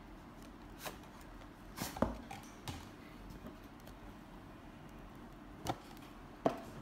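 A product box and its packaging being opened and handled: a few faint, scattered clicks and taps, the loudest near the end.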